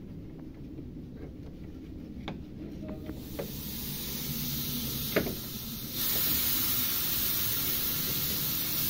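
Test pressure of about 300 psi hissing out of a car AC system through the gauge manifold as its valve is opened to vent it, after the system held pressure with no leak. The hiss starts about three seconds in and gets louder at about six seconds, when the valve is opened further.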